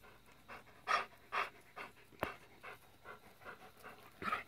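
Gray wolf panting: soft, quick breaths, about two a second, with one sharp click a little past two seconds in.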